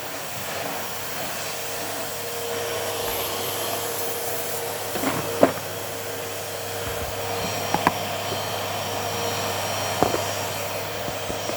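Numatic Henry HVR200-12 cylinder vacuum cleaner running steadily with a constant motor whine. A few short knocks come about halfway through and again near the end, as the nozzle or hose bumps against things.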